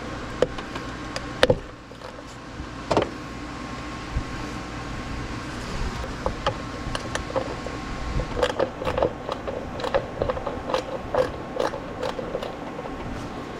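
Hand tools working on a car engine: scattered metal clicks and knocks, then from about eight seconds in a quick run of socket-ratchet clicks.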